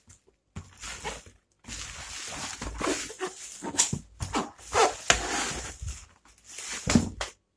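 Bubble wrap crinkling and a cardboard box being handled and turned, in irregular bursts, with a few short whining sounds among them.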